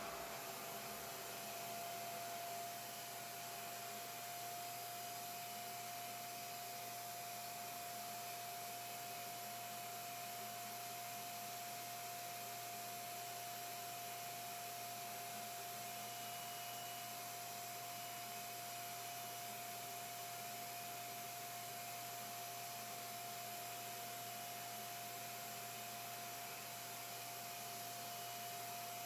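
Revair reverse-air hair dryer running steadily: an even rush of air under a steady high whine.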